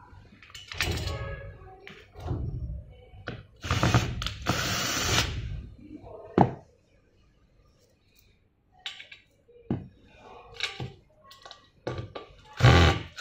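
Knocks, clicks and clatter of metal parts being handled as a chrome armrest bracket and bolts are set against a chair seat. Near the end a cordless drill starts up, driving a bolt into the bracket.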